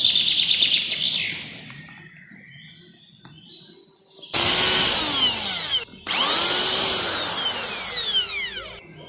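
Electric hand drill boring into a king coconut in two bursts, about a second and a half and then nearly three seconds long. Its whine rises and falls with the motor's speed.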